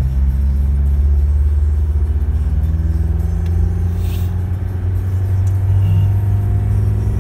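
Car driving along an open road, heard from inside the cabin: a steady low rumble of engine and tyre noise.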